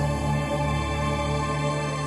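Background music: a slow new-age instrumental with held, sustained chords.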